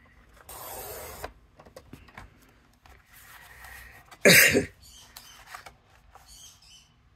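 Paper trimmer blade sliding along its rail and slicing a strip off a card panel, followed by paper rustling as the panel is lifted. A single short cough about four seconds in is the loudest sound.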